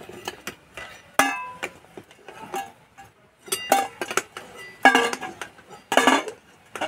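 Long steel ladle knocking against a kadai and a steel bowl as hard-boiled eggs are scooped out of boiling water and set into a bowl of water: a series of separate metallic clinks, several of them ringing briefly.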